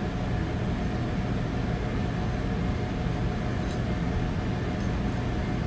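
Steady low hum and air rush of commercial kitchen ventilation, with a few faint light clicks about two-thirds of the way in and near the end.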